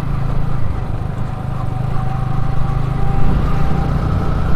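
Wind rumbling on a helmet-mounted microphone while a motorcycle is ridden at moderate speed, with the engine running steadily underneath.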